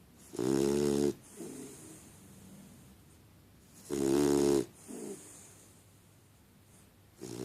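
Snoring in sleep: two loud, pitched snores about three and a half seconds apart, each followed by a softer breath out, with a third snore starting at the very end.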